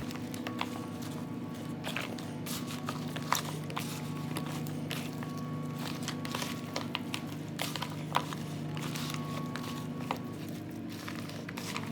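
Background music of steady sustained tones, over scattered short clicks and taps of hands mixing raw chicken with seasonings and cut vegetables in a bowl.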